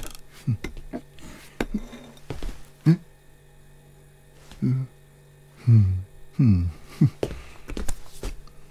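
Animated cartoon sound effects: small sharp clicks and knocks of kitchen things being handled, and a few short wordless vocal sounds that drop in pitch, over a steady low hum.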